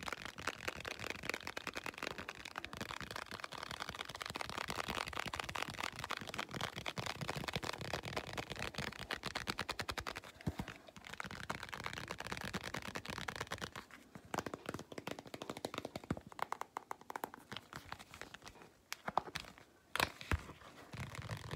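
Rapid fingernail tapping and scratching on a small flat printed object: a dense run of quick clicks that thins out about two-thirds of the way through, with a few sharper clicks near the end.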